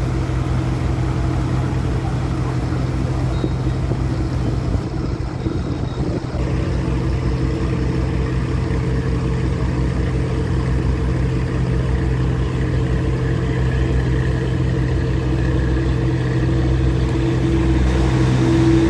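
Passenger launch's engine running steadily under way: a constant low drone.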